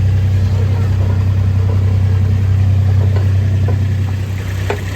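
Vehicle engine running steadily at idle, a constant low drone, with a few faint knocks near the end.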